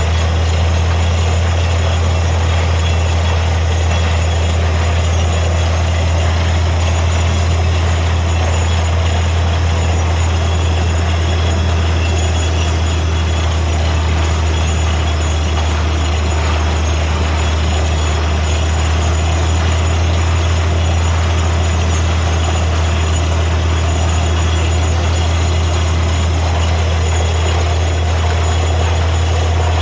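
Truck-mounted borewell drilling rig running steadily while drilling, a constant deep engine hum under a wash of machine noise.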